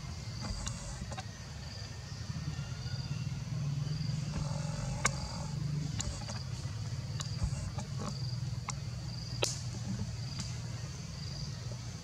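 Forest ambience: an insect chirping high and regularly, about one chirp every three-quarters of a second, over a steady low rumble, with scattered sharp clicks and rustles.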